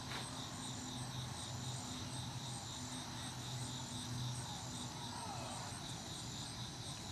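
Crickets chirping steadily, a faint, even, rapidly repeating high pulse, with a faint low hum coming and going underneath.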